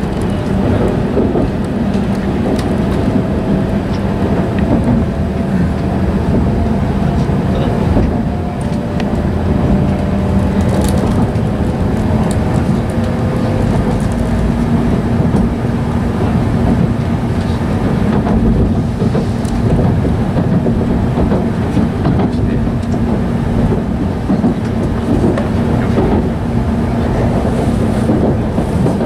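Cabin running noise of an E5-series Shinkansen train: a steady rumble from the wheels and running gear with a low hum, and faint whining tones in the first half.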